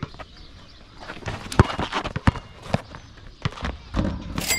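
Basketball bouncing on a court and players' footsteps during one-on-one play: a run of sharp, irregular thuds, with a short high squeak near the end.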